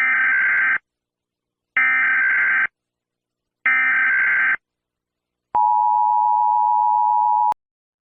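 Emergency Alert System alarm: three short warbling bursts of SAME header data, each under a second with a pause between, then a steady two-tone attention signal held for about two seconds that cuts off with a click.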